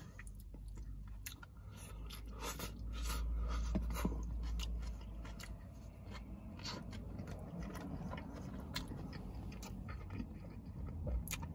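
Close-miked chewing and biting of a coney dog: a hot dog in a soft steamed bun under chili sauce and chopped onions, with many small mouth clicks and smacks throughout.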